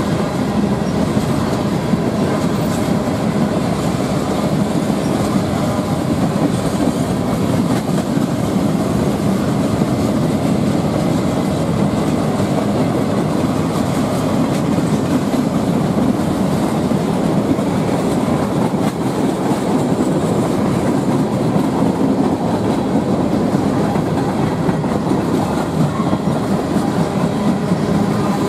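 Freight train's cars rolling past close by, a string of tank cars and covered hoppers: a steady, loud rumble and clatter of steel wheels on the rails.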